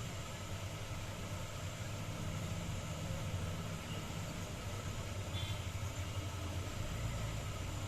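Steady low mechanical hum with a faint hiss.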